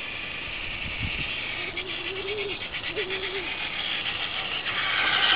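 Traxxas Slash RC truck running toward the camera while towing a boat trailer: its motor and drivetrain whine with tyre noise on the pavement, growing louder and peaking near the end as it comes close.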